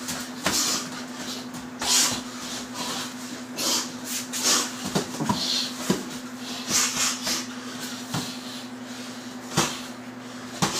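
Gloved punches from a kneeling position landing on a heavy bag lying on the floor, irregular dull thuds about once a second. Several strikes come with a short breathy hiss.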